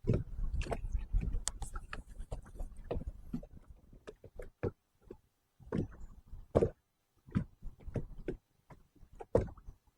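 Irregular light knocks and clicks aboard a small fishing boat, with a low wind rumble on the microphone in the first few seconds.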